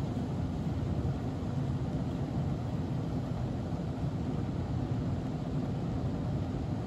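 Steady low rumble of an N scale model freight train's cars rolling along the track.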